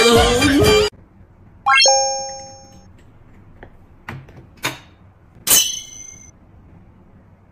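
Background music with singing stops abruptly about a second in, followed by a quick rising chime, an edited-in sound effect whose tones ring on for about a second. After it come a few faint clicks and one brighter, ringing clink near the middle.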